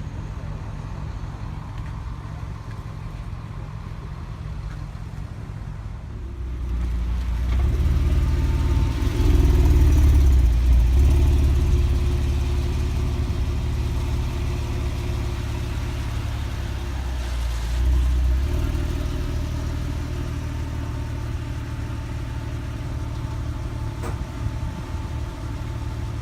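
Porsche 911 Carrera 4S (997) flat-six engine running as the car is driven: a low engine drone that climbs about six seconds in, peaks a few seconds later, swells again briefly in the middle, then settles to a steady drone.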